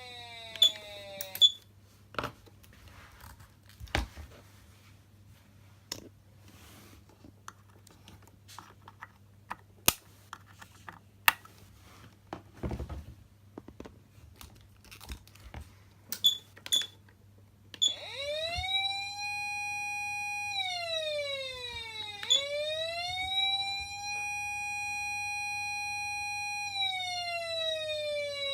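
Patlite SAP500BZ electronic siren amplifier: a siren tone winds down just after the start, then there is a long pause of scattered sharp clicks over a steady low hum. About 18 s in, the siren starts again in a slow wail, rising, holding, falling, rising again and holding, then falling away near the end.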